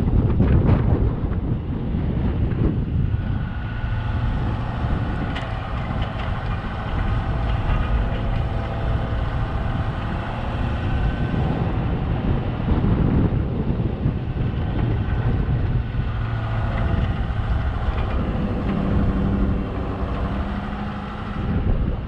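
Snowplow pickup truck driving over a snow-covered road: its engine runs steadily under a low rumble, with wind buffeting the hood-mounted microphone.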